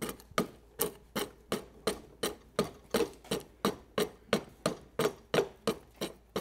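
A large wood chisel, pushed by hand, chipping out the waste between saw kerfs in a lumber rail. It makes an even run of sharp cracks, about three a second.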